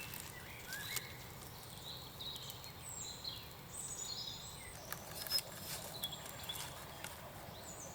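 Quiet woodland ambience with scattered short bird chirps and calls, and a few faint clicks.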